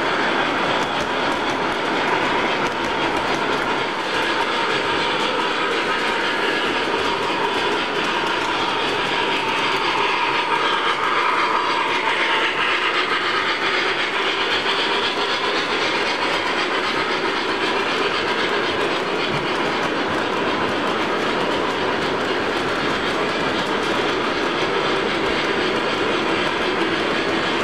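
O-gauge model freight train, an MTH RailKing Union Pacific Big Boy with boxcars, running past on model track: a steady rolling rumble and clatter of the wheels on the rails, brighter for a few seconds in the middle as the locomotive goes by.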